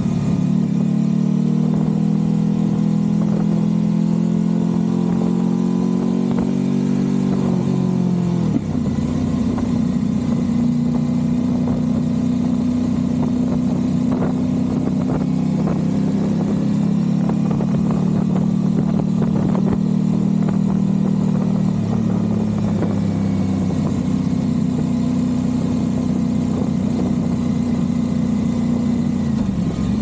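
Aprilia RS660's parallel-twin engine through a Mivv Delta Race exhaust, running at low road speed under light throttle. Its tone changes about eight seconds in and again a little past twenty seconds, with a short dip near the end as the throttle and gears change.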